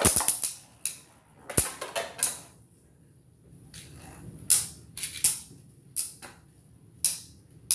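Beyblade Burst tops spinning and clashing in a plastic stadium: a run of sharp plastic clacks, about a dozen at irregular spacing, with a short lull partway through.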